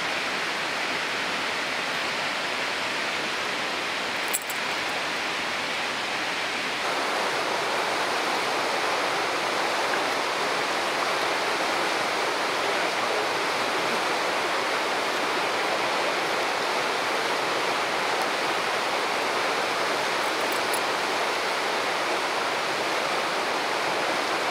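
Steady rush of river water running over rapids, a little louder from about seven seconds in, with one brief click about four seconds in.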